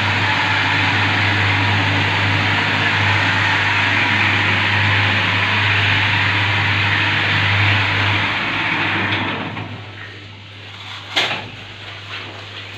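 Marble polishing machine running, its arm-mounted head grinding on a wet marble tile with a steady motor hum. The noise fades out about nine seconds in, and a single sharp knock comes near the end.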